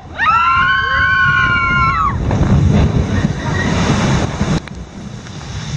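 Log flume riders screaming together for about two seconds on the big drop. Then loud rushing wind on the microphone and water as the log plunges down, falling in level about four and a half seconds in.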